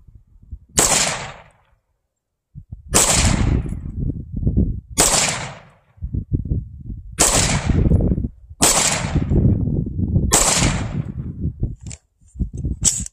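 AR-15 rifle fired seven times in slow, aimed single shots, about one and a half to two and a half seconds apart, each sharp crack trailing off in an echo, with a low rumble in between.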